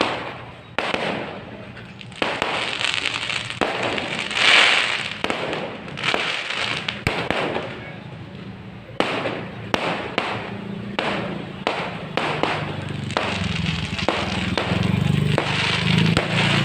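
Fireworks display: a rapid, uneven series of bangs and crackling bursts coming in clusters with short gaps, the loudest burst about four and a half seconds in.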